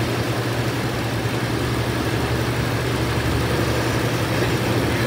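Shelby truck's supercharged V8 engine idling steadily under the open hood.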